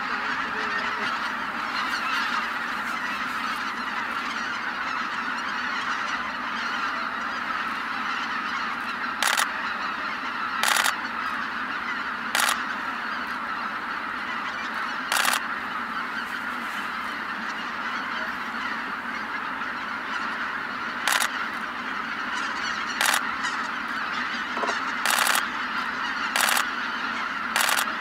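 A huge flock of greater white-fronted geese calling without a break as they fly in to roost, a dense chorus of overlapping honks. In the second half, about nine short, loud bursts of noise stand out above the chorus.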